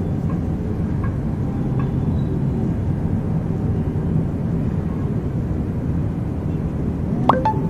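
Steady low rumble of background noise with a faint low hum, and a couple of brief high chirps near the end.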